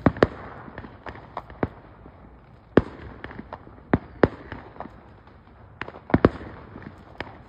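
Fireworks going off: a string of sharp bangs at uneven intervals, some of them landing in quick pairs.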